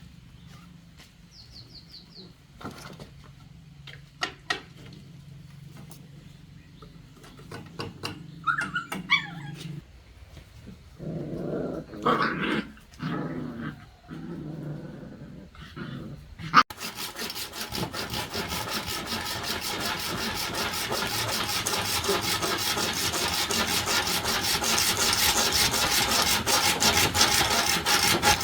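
A dog whimpering and growling in short bursts among scattered clicks. About two-thirds of the way in, a continuous rapid rasping of sawing starts and slowly grows louder.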